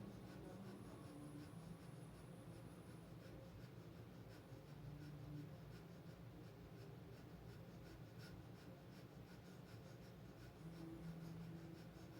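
Quiet, rhythmic, rapid breathing through the nose: breath of fire, the pumping of the diaphragm in kundalini breathwork. Faint low sustained tones of soft background music sit under it.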